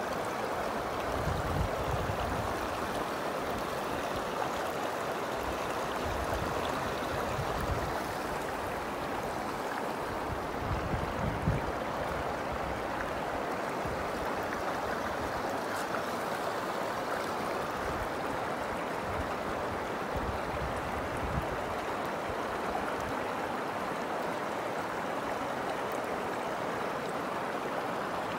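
Shallow mountain river flowing over rocks: a steady rush of water, with a few irregular low bumps in the first half.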